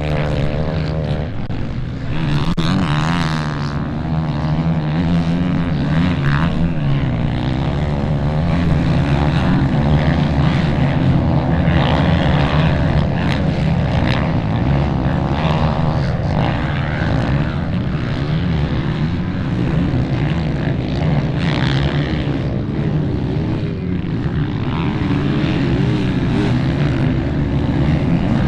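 Several enduro motorcycle engines running at once, revving up and down in a continuous loud drone with a constantly shifting pitch.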